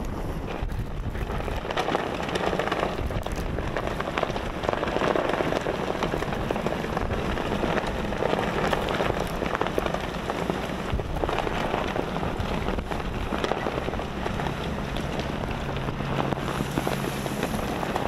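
Blizzard wind driving snow: a steady rushing hiss that swells in gusts every few seconds, full of tiny ticks from snow grains hitting. A faint low hum joins near the end.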